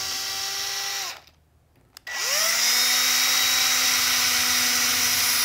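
Electric drill boring small pilot holes through a kayak's coated fabric skin into the mounting block beneath: one run winds down about a second in, then after a short pause the drill spins up again with a rising whine and runs steadily for the second hole.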